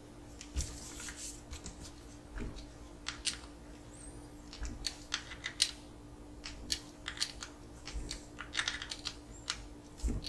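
Irregular clicks, taps and small scrapes of hard plastic and metal parts being handled and fitted on an RC car chassis, over a steady low hum.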